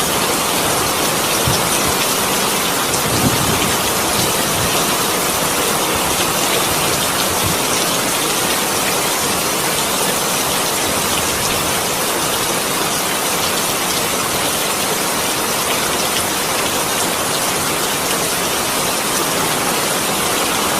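Steady, even rush of water like heavy rain falling, with a couple of brief low thumps early on.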